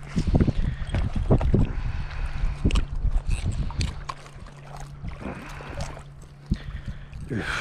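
Water slapping and lapping against a small fishing boat's hull, with wind rumbling on the microphone and a steady low hum underneath; the knocks and rumbles are heaviest in the first half and ease off after about four seconds.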